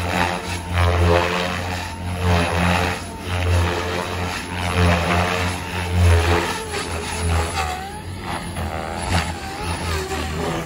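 XLPower Protos 480 electric RC helicopter in flight, its rotor blades beating and its motor whining, swelling and fading as it manoeuvres. Near the end the whine glides up and down in pitch.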